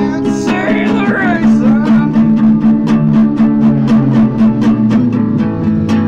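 Music: strummed acoustic guitar with a steady, even rhythm of strokes.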